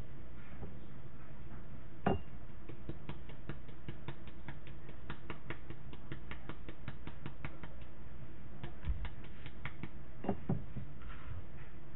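A fast, even run of small dry clicks, about six a second, lasting several seconds as dried thyme is worked by hand over a bowl. A single knock comes about two seconds in, and a couple more near the end.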